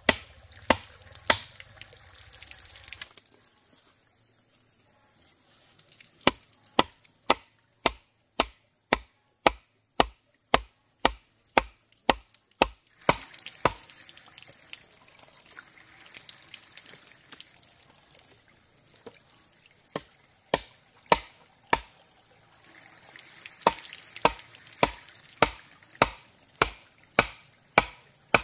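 Rhythmic chopping, sharp blows at about two a second in runs with short pauses between. A faint high whistle falls in pitch three times.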